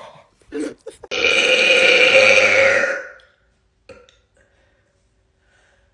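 A woman burping: after a few short sounds, one long, loud belch of about two seconds comes a second in, holding a steady pitch and then trailing off.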